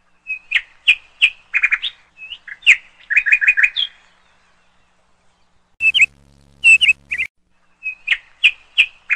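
A songbird chirping and tweeting in groups of short, sharp calls, some in quick runs of four or five, with a pause of nearly two seconds in the middle. A faint, low, steady hum sits under one group of calls past the middle.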